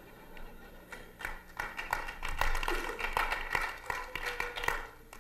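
Light, scattered hand clapping from a few people. It starts about a second in and thins out near the end.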